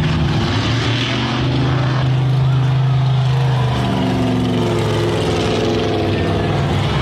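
Mega mud truck's engine held at high revs, a loud steady drone whose pitch shifts about four seconds in as the truck claws its way up out of the mud pit on its paddle tires.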